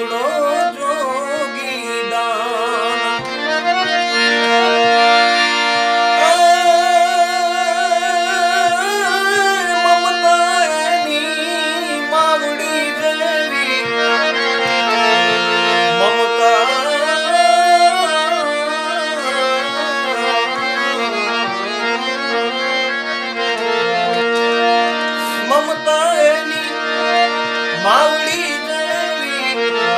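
Harmonium playing a melody over steady held drone notes, accompanying a man singing a slow Gujarati folk song with wavering, gliding ornaments.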